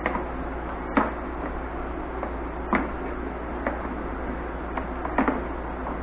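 Shop vac being rolled on its caster wheels, one of them just repaired with a coupling bolt, giving irregular clicks and knocks over a steady low background noise.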